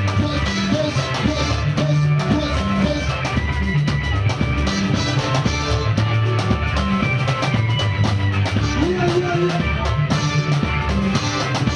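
Live church praise band playing a steady, upbeat dance groove, with guitar over drums.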